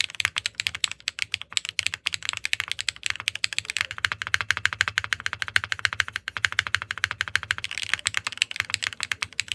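Fast, continuous typing on a Sensy Supernova 60 custom mechanical keyboard: HMX PEI Bumblebee linear switches on a 4 mm PEI plate with a PEI midframe, top-mounted. Each keystroke gives a sharp clack, many strokes a second.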